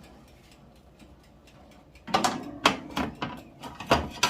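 Kitchenware being handled: quiet at first, then about two seconds in a quick run of about seven sharp knocks and clicks.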